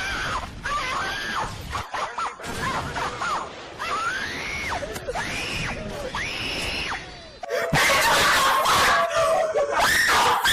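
A high-pitched voice screaming in a series of rising-and-falling wails. About three-quarters of the way through it turns into louder, harsher screaming.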